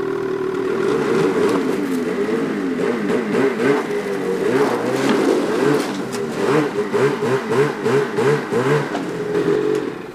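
Lynx Rave snowmobile's two-stroke engine running at low speed with repeated short throttle blips as the sled is driven up a ramp into an enclosed trailer. The engine is shut off near the end.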